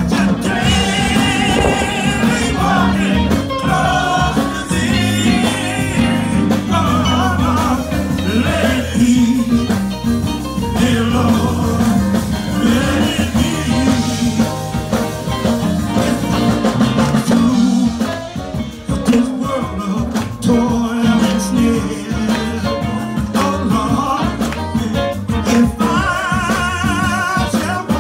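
Men's gospel choir singing a hymn through a PA, with wavering held notes from the lead voices, over a band accompaniment with a steady bass line.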